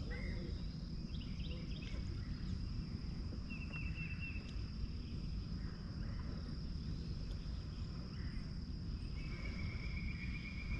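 Open-air lake ambience: a low steady rumble under a thin, steady high-pitched tone, with a bird giving a quick run of chirps about four seconds in and a held whistled note near the end.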